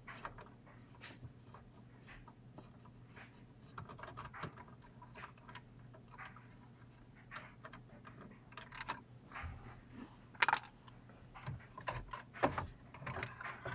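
Scattered light clicks and taps of a car stereo and its plastic dash trim being handled and worked loose, with a sharper click about ten and a half seconds in.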